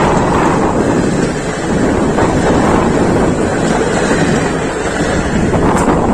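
Steady rushing noise of a passenger train running at speed, heard from on board, with wind buffeting the microphone.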